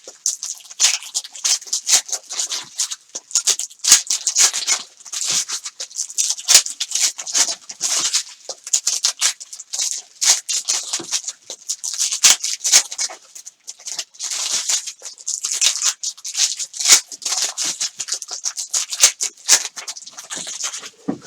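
Foil trading-card pack wrappers being torn open and crinkled by hand, a quick run of crackling rustles with no let-up.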